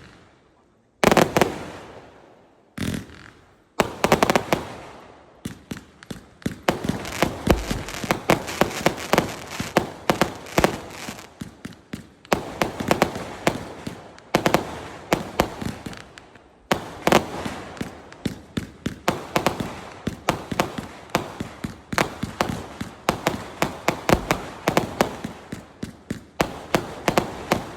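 A 0.8-inch, 399-shot fireworks cake (repeater) firing: three separate loud bangs in the first four seconds, then a rapid, unbroken string of shots and bursts that keeps going.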